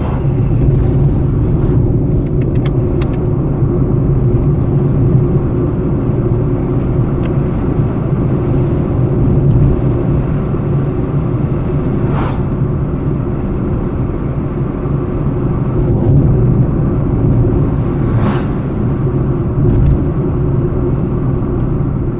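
Car driving: steady engine and road rumble, with a short whoosh twice, about halfway through and again later.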